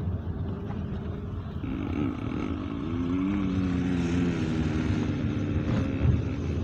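Car driving, heard from inside the cabin: a steady low road rumble, joined after a couple of seconds by an engine hum that wavers up and down in pitch midway.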